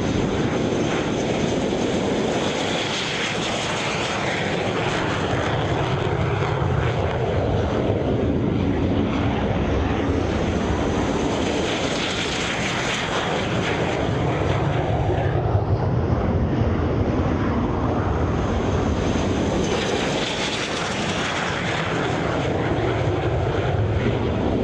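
Fixed-wing aircraft engine noise, a continuous loud roar that swells and eases three times.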